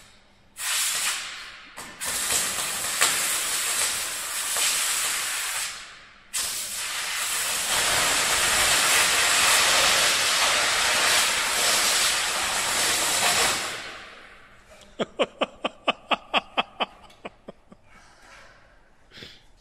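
Broco BR-22 Plus exothermic cutting torch burning a cutting rod in its oxygen stream: a loud, harsh hiss that starts, breaks off twice, then runs steadily for about seven seconds before dying away. Near the end, a quick run of sharp ticks, about five a second.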